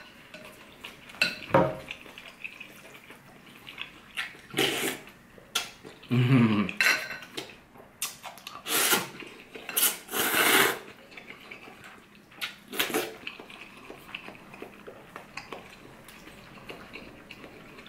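Ramen being eaten: several loud, wet slurps of noodles and broth in the middle stretch, with wooden chopsticks and a ceramic spoon clicking against a ceramic bowl now and then.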